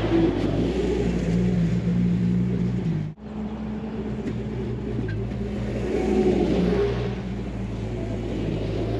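Bobcat compact track loader's diesel engine running at working revs as it drags a grading attachment along a dirt trail, its note shifting a little as the load changes. The sound breaks off for an instant about three seconds in.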